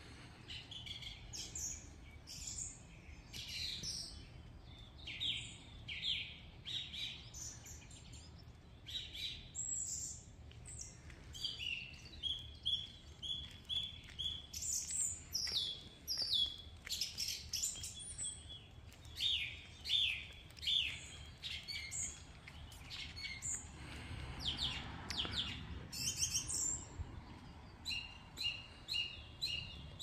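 Small songbirds chirping and singing in the trees, many quick high notes and short trills overlapping and repeating.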